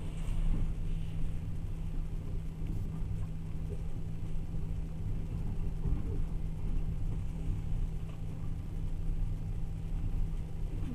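Steady low rumble of a moving passenger train heard from inside the carriage, with a constant low hum underneath.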